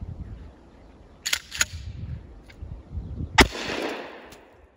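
A 12-gauge pump shotgun loaded with number 4 buckshot. Two quick sharp clacks as the pump is worked, then about two seconds later a single loud blast whose echo dies away over about a second.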